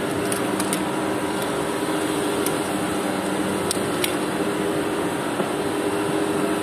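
Steady mechanical hum holding several low tones, like air-conditioning plant running, with a few light, sharp clicks scattered through.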